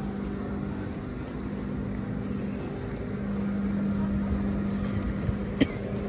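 A boat's engine running with a steady hum that grows louder about halfway through, with a single short knock near the end.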